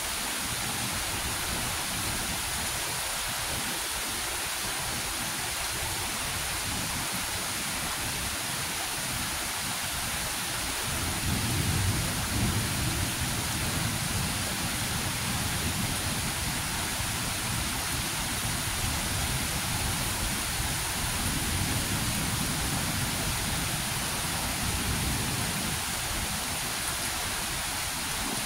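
Heavy rain falling steadily, with a long roll of thunder that breaks in about a third of the way through and rumbles on in several swells.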